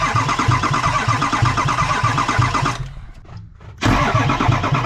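Ford 6.0 Powerstroke V8 diesel turning over on the starter without firing, a rhythmic low chugging about four beats a second; the cranking stops for about a second near three seconds in, then starts again. The owner takes the thumping for a bad lifter, and the engine won't start because a broken needle bearing in the relief valve keeps oil from reaching the high-pressure pump.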